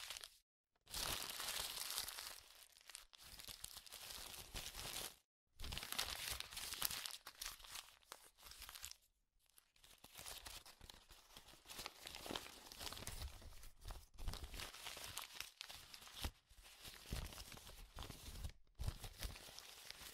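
Packaging of a MacBook Air box being torn open and crinkled by hand: scratchy tearing and rustling in several stretches, broken by sudden short silences.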